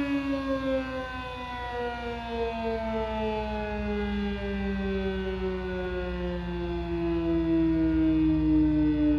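Sterling M-10 fire siren sounding its test tone and winding down, its pitch falling slowly and steadily throughout.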